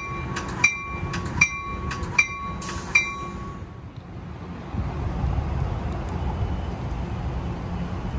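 A train bell rings with even strikes about every three-quarters of a second, stopping about three seconds in. After a short lull, a low steady rumble comes in as a Metrolink commuter train approaches.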